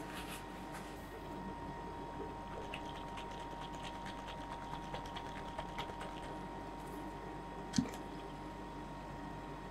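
Faint steady hum of a rolled-ice-cream machine, with soft ticks and sloshing as a plastic bottle of liquid ice cream base is shaken, and a single soft knock near the end.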